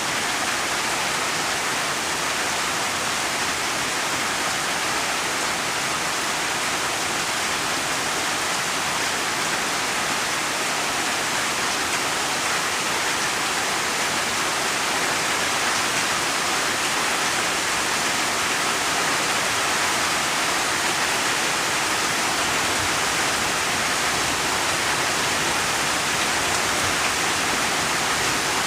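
Steady heavy rain: an even, unbroken hiss of falling rain without distinct drops or thunder.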